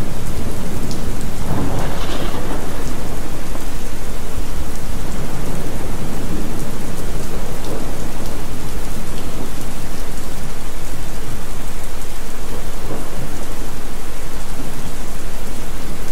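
Thunderstorm recording: steady heavy rain, with a swell of thunder about two seconds in.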